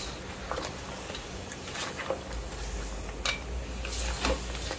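A spatula stirring a thick stew of lobster and vegetables in an aluminium pot, with a few scattered scrapes and knocks against the pot over a low steady hum.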